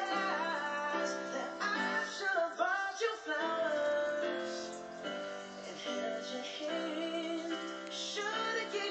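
Music: a woman singing a melody over instrumental accompaniment.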